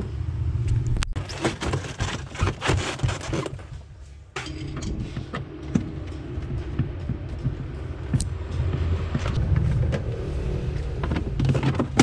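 Plastic refrigerator interior parts being handled and fitted back into place, with repeated clicks and scrapes. After an abrupt break about four seconds in, a screwdriver turns a screw into the plastic lamp cover, with small clicks and scrapes over a low steady hum.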